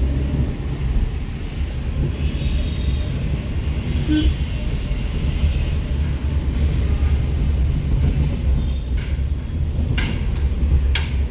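A moving vehicle's steady low road and engine rumble, with a few sharp clicks in the last couple of seconds.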